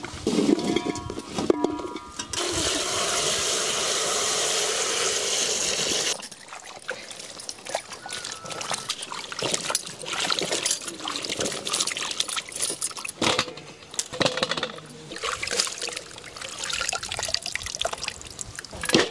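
Water pouring steadily into an aluminium pot of vegetables for about four seconds, starting about two seconds in. Then come irregular splashing and rustling as hands wash bell peppers, green beans, carrots and chillies in the water.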